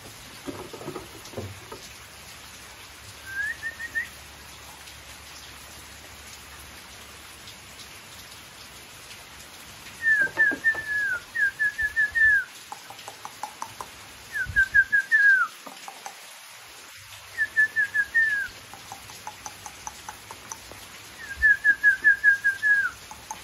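A bird calling in short runs of quick, high chirps, one brief run early and then a run every few seconds, the last with about eight notes.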